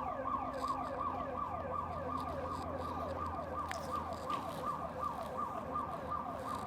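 Building security alarm siren wailing in fast, repeated downward sweeps, about three a second. The alarm was set off by the building's motion detectors.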